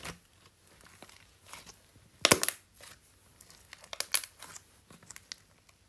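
Speckled green slime being squeezed and worked between the hands, giving bursts of crackling and popping clicks. The loudest crackle comes about two seconds in, and another comes about four seconds in.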